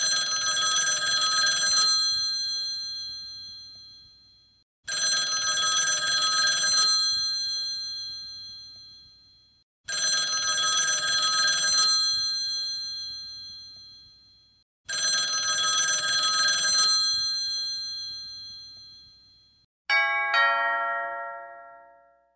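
A telephone bell ringing: four rings about five seconds apart, each trilling for about two seconds and then dying away. Near the end comes a short, different two-note chime.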